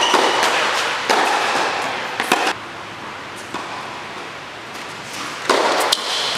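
Sharp tennis ball impacts, racket hits and bounces, echoing in an indoor tennis hall, with short stretches of rushing noise between them.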